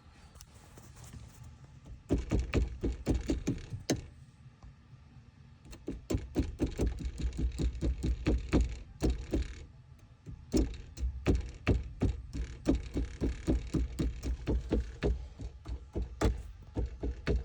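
Rapid knocking rattle from a Toyota Rush, about five knocks a second, coming in runs of a few seconds over a low rumble: the unwanted extraneous noise in the car.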